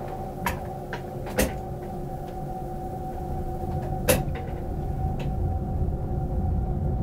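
Electric passenger train running, heard from the driver's cab: a steady hum with a few sharp clicks and knocks, the strongest about four seconds in, and a low rumble that slowly grows louder.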